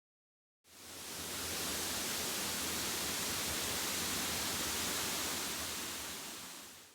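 A steady, even rushing noise with no tone or rhythm. It fades in about a second in and fades out near the end.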